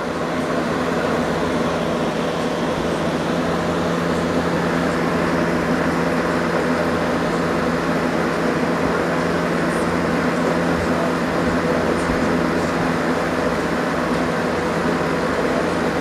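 Steady mechanical hum with a low drone and a hiss over it, unchanging, with a couple of faint ticks in the second half.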